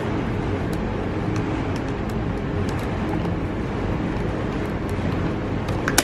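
Steady low mechanical rumble of shop machinery, with faint light clicks as the plastic switch tabs are pressed and worked by hand.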